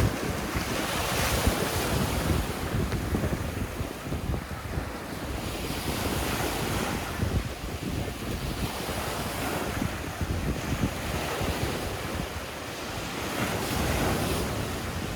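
Sea waves breaking and washing in, the surf swelling and fading every few seconds, with wind rumbling on the microphone.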